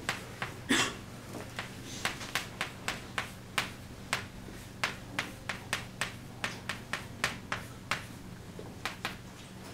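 Chalk writing on a blackboard: a quick, irregular series of sharp taps and short scrapes as each stroke of a formula is put down.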